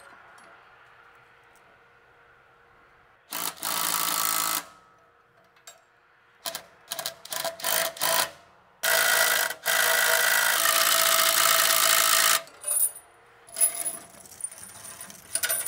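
Cordless impact driver running bolts into a strip-till bar's row-unit mounts in several bursts, the longest about three and a half seconds, with short blips between.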